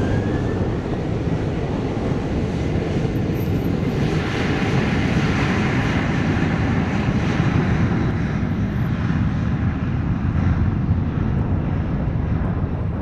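Boeing 737-800's CFM56 turbofan jet engines running loud as the airliner rolls along the runway, loudest about four to eight seconds in, then fading as it moves away.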